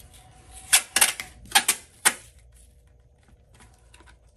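Masking tape being pulled off its roll in short jerks: about six sharp crackling snaps packed into the first two seconds, followed by a few faint clicks.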